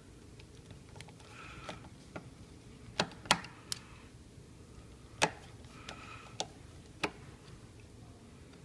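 Sharp metallic clicks and taps, about six of them, loudest twice in the middle, from a hex-bit screwdriver and small bolts as the faceplate is fastened back onto a Land Rover air suspension compressor.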